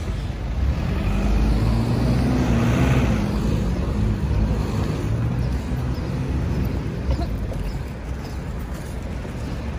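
City street traffic: a motor vehicle's engine drones past close by, swelling about a second in and fading after about five seconds, over a steady hum of road traffic.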